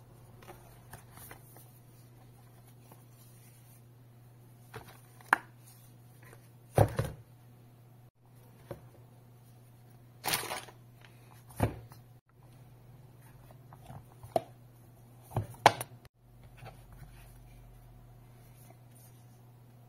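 A tablet in a folio cover being handled: scattered taps, clicks and knocks against the case and desk, with a brief rustle about ten seconds in, over a steady low hum.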